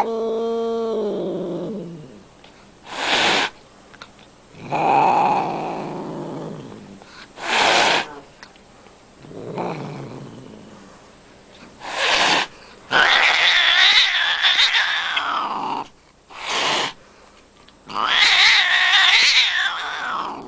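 White Scottish Fold cat making an angry warning display. A low, drawn-out growling moan opens it, short sharp hisses come about every four to five seconds, and two long, louder yowls follow in the second half: the sound of an agitated, threatened cat warning someone off.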